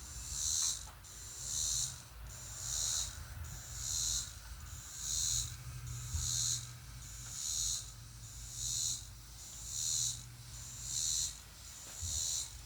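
Paintbrush swishing as it spreads fiberglass resin over the boat hull, in even strokes about once a second.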